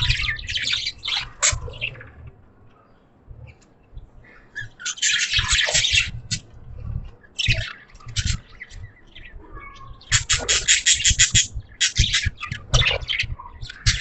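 Budgies chirping and chattering in bursts of harsh, rapid chirps, with short quieter pauses between the bursts.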